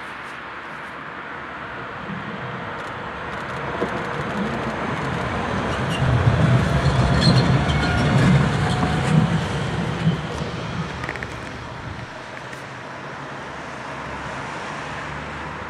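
Electric tram passing close by on its track: the rumble of wheels on rails builds, is loudest for a few seconds in the middle, then fades as the tram moves away.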